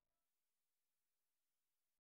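Near silence: the video's end.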